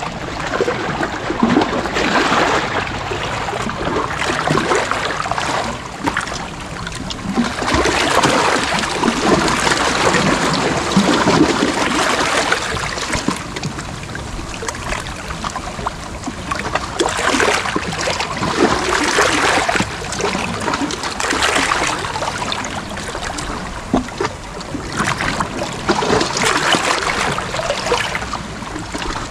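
Sea waves washing in and drawing back, swelling and easing in surges about every eight seconds.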